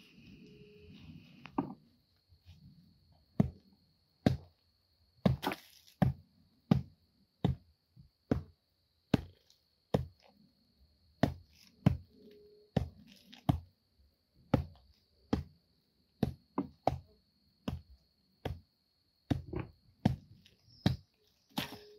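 Repeated sharp chopping strikes, about one a second, each a single hard hit.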